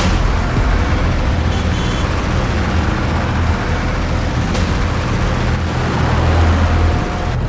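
A motor vehicle running, with a steady low rumble and no clear break or change.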